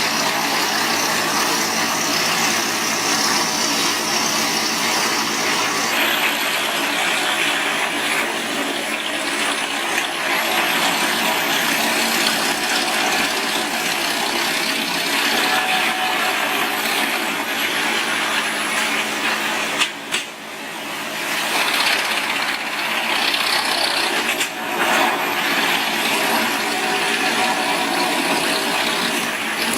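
Large engine-driven wood chippers running loudly and steadily, with grinding noise from wood being chipped. The sound changes abruptly about 6 and 20 seconds in, with a brief drop at 20 seconds.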